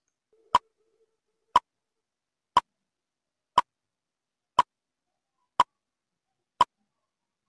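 Countdown timer sound effect ticking once a second: seven sharp, evenly spaced ticks.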